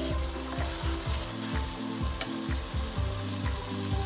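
Sofrito sizzling in a hot cast-iron pot while mashed green plantain is stirred through it with a wooden spoon, the spoon scraping and knocking lightly against the pot.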